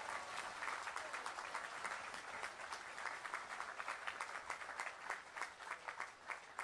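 Large crowd clapping, dense at first and thinning out near the end.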